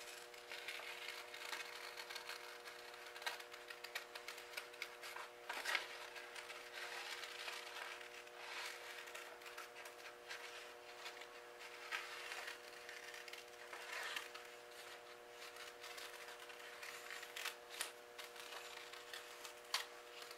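Scissors cutting through brown paper in a run of faint, irregular snips, with the sheet rustling as it is turned.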